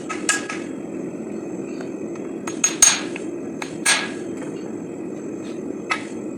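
Hand-forging hammer blows on SAE 5160 steel bar at the anvil: about eight separate, irregularly spaced strikes, several with a short metallic ring, the loudest cluster about three seconds in. A steady low rushing noise runs underneath.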